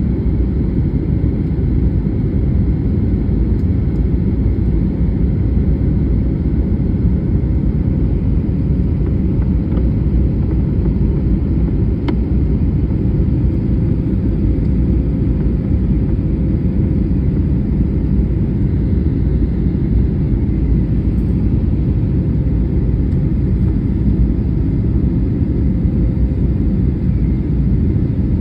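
Steady cabin noise inside a jet airliner in flight: a low rumble of engines and airflow, with a faint steady hum running through it.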